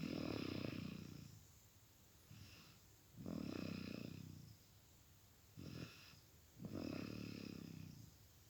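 Young child snoring heavily in sleep, an adult-like snore. There are three long rattling snores about three seconds apart, each preceded by a shorter, fainter breath.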